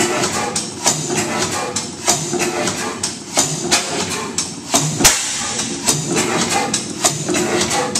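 15 HP St. Mary's sideshaft hit-and-miss gas engine running, with a drop-cam igniter and mechanical valves. It gives a run of uneven knocks and clicks, with one loud sharp bang about five seconds in.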